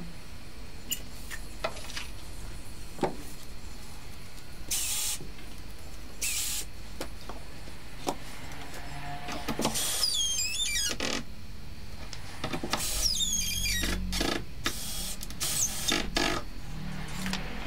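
Cordless drill driving screws through a timber batten into a wardrobe side panel: short runs of motor whine, wavering in pitch, about ten seconds in and again near the end, among knocks and handling clicks.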